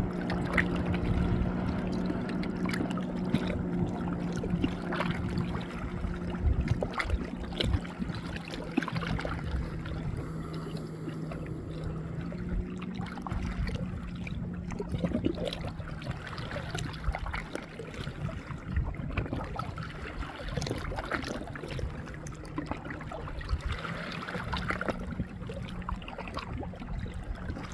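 River water lapping and trickling, with many small splashes and ticks, over a steady low hum that shifts pitch slightly about halfway through.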